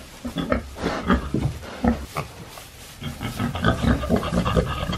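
American Guinea hogs and piglets grunting in short, irregular bursts as they nose about in hay bedding, the grunts coming thicker near the end.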